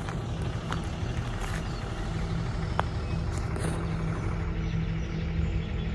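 A steady low engine hum of a motor vehicle or machine running, with one short sharp chirp a little before the middle.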